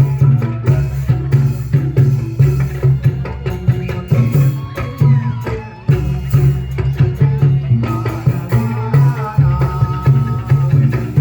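Instrumental dangdut koplo music with a busy, quick hand-drum rhythm, a steady bass and melodic instrument lines.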